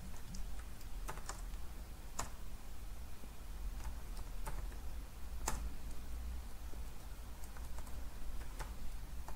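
Keystrokes on a computer keyboard: scattered, irregular key presses with short pauses, as terminal commands and a password are typed, over a low steady hum.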